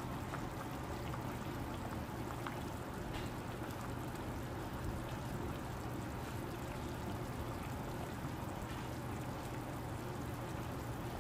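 Pot of fish and tomato soup boiling steadily, the broth bubbling, over a constant low hum.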